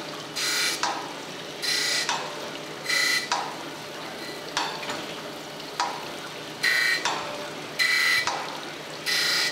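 Surface grinder's wheel taking a 5-thousandths pass on a cast-iron straight edge casting under flood coolant: a hissing grind that comes in repeated bursts about a second apart, with a quieter stretch in the middle, over the machine's steady low hum.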